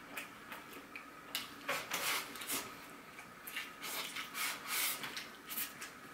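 A person eating rice from a bowl with chopsticks: chewing and mouth sounds mixed with scrapes of the chopsticks against the bowl, short and irregular.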